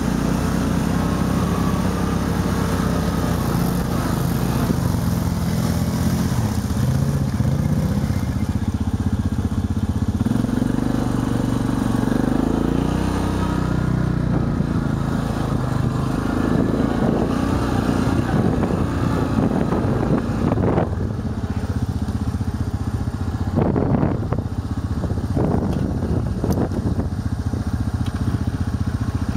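Quad ATV engine revving unevenly as it spins its wheels through boggy mud, the pitch rising and falling with the throttle. Several short knocks come in the last third.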